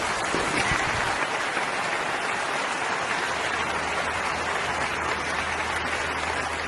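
Applause: a steady, dense patter of many hands clapping, with a low steady hum coming in about three seconds in.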